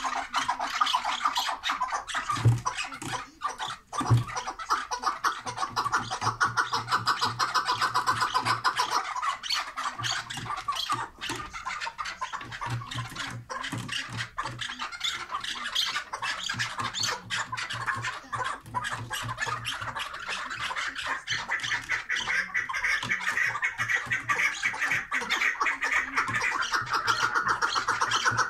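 Chukar partridges calling: a fast, unbroken run of harsh clucking notes that grows louder over the last few seconds.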